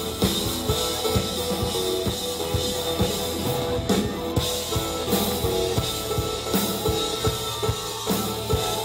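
A live band playing: a drum kit keeping a steady beat of about two hits a second under electric guitar and sustained chords. The cymbals and high end drop out briefly about four seconds in, then come back.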